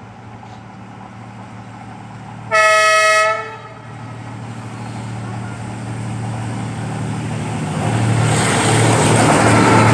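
Diesel locomotive horn sounding one loud blast of about a second, followed by the locomotive's engine hum and the rumble of the train growing steadily louder as it approaches the level crossing.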